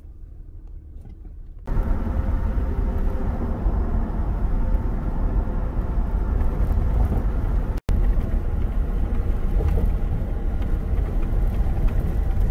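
Steady road and engine noise of a Toyota Tacoma pickup driving at highway speed, heard from inside the cab, with a strong deep rumble. It starts abruptly about two seconds in and drops out for an instant about eight seconds in.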